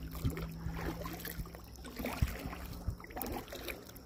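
Scattered light knocks and bumps on a plastic sit-on-top kayak sitting on still water, with faint water sounds and a low steady hum underneath.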